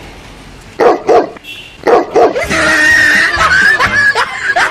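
Dog-like barking: two sharp barks about a second in and two more about two seconds in, then a long, high-pitched, wavering cry.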